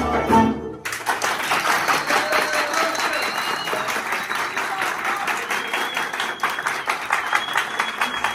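A folk ensemble of bağlamas, violin and guitar plays its last notes, then audience applause starts suddenly just under a second in. The room full of people claps steadily.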